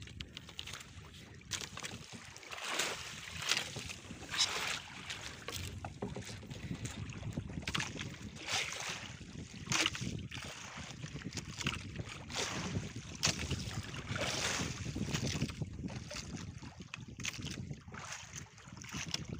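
Sea water lapping and slapping against the hull of a drifting wooden outrigger boat, in soft irregular splashes, with wind buffeting the microphone.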